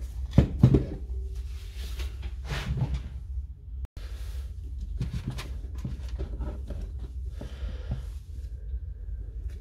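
Parts of a cordless impact wrench being handled during a teardown: knocks and clicks of the metal gear housing and the plastic housing and wiring, with the loudest couple of knocks just under a second in, over a steady low hum.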